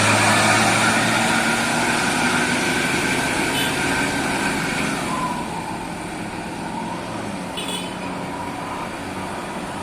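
Bus pulling away, its engine and road noise fading steadily into the distance.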